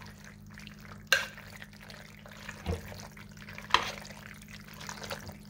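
A spoon stirring cooked penne through a thick, creamy sauce in a crock-pot's ceramic insert: soft wet squelching, with a sharp clack about a second in and again just before four seconds as the spoon knocks the pot.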